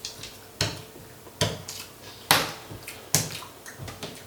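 Sharp clicks of someone eating a plate of rice, four in all at an even pace a little under a second apart.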